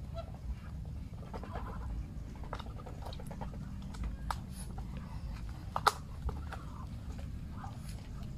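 Muscovy ducks feeding from plastic basins: scattered sharp bill clicks and crunching as they peck and dabble, with one louder click about six seconds in. A steady low rumble runs underneath.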